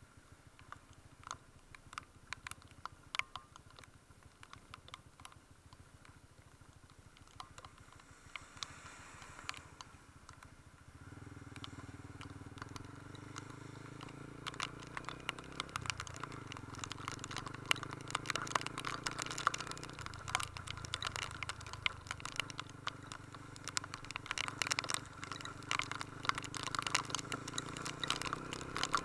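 Raindrops ticking and pattering in close, sharp drops that grow denser in the second half. About eleven seconds in, a motorcycle engine comes in and runs steadily underneath.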